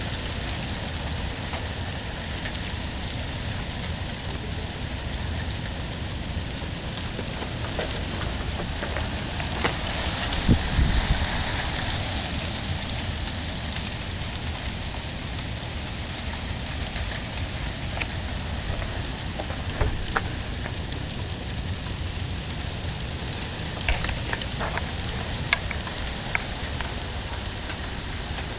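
Sleet and freezing rain of an ice storm falling steadily on surfaces, loud, with scattered sharp ticks of ice hitting. It swells louder for a few seconds about ten seconds in, then settles back.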